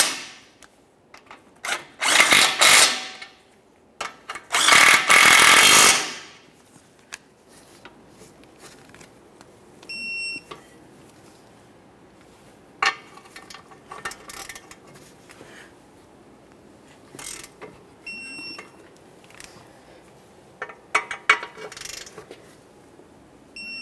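A cordless power tool spins a socket to run steel nuts down onto the lower ball joint bolts, in two bursts. The nuts are then torqued by hand with a torque wrench: ratcheting clicks, and a short high beep three times, about eight seconds apart, as each nut reaches the set 68 ft-lb.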